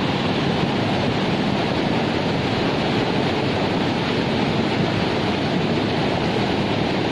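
Fast-flowing floodwater in a swollen river, a steady rush of water.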